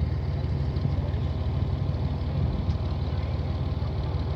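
Tractor engine running steadily, a continuous low rumble.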